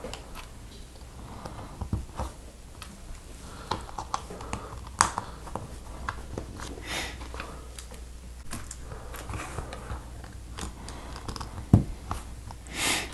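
Lego plastic plates and bricks clicking and tapping as they are handled and pressed together on a tabletop: a scatter of light, irregular clicks.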